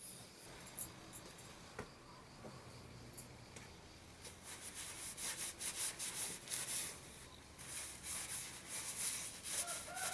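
Quiet, irregular rubbing strokes of hand sanding on a knife's handle scales, after a couple of light clicks. Near the end a rooster starts crowing.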